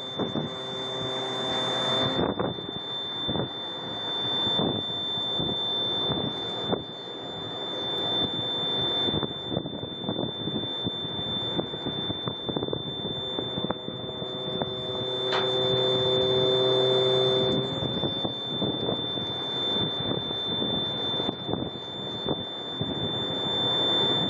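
Crane truck's engine running under load as it lifts the work basket. A pitched whine rises over the rumble briefly at the start and again for about three seconds in the second half, with a steady high tone throughout.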